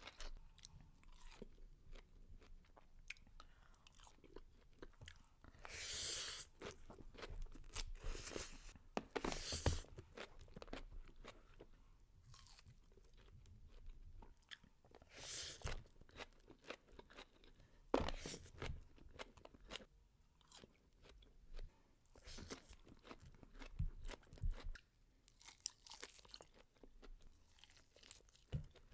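A person eating: chewing and crunching, with many small clicks and a handful of louder crunchy bites spread through.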